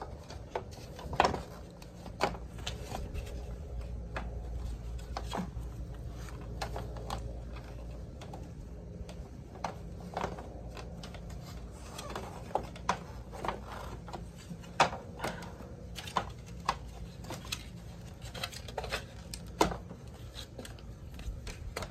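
Irregular plastic clicks and knocks as a new grille is worked into a removed car front bumper cover, its tabs pressed into place. A steady low rumble runs underneath.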